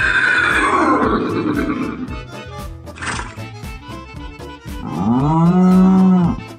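A man's voice imitating a horse whinny, a loud wavering call falling in pitch over about two seconds, then a short breathy snort. About five seconds in comes an imitated cow moo lasting over a second. Backing music with a steady beat plays under it.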